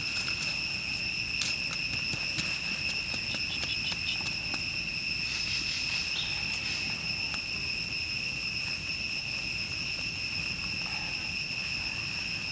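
A steady high-pitched drone from a chorus of insects, with scattered small crackles and snaps from a small wood fire.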